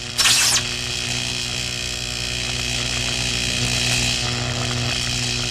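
Electric arc sound effect: a sharp zap about a quarter second in, then a steady electrical buzz over a low hum.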